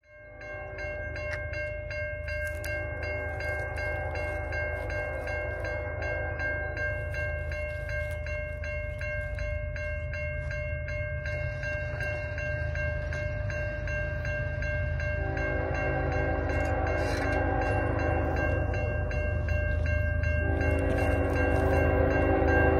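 Railway crossing bell ringing steadily at a level crossing, with an approaching CN locomotive's multi-note horn sounding in long blasts that grow louder toward the end.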